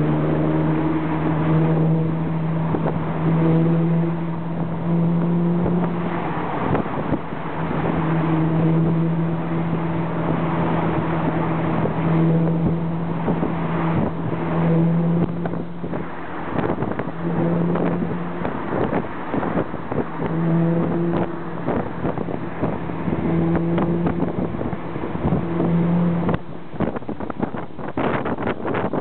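Alfa Romeo Spider engine running with a steady pitch that fades and returns every second or two, under gusty wind noise on the microphone.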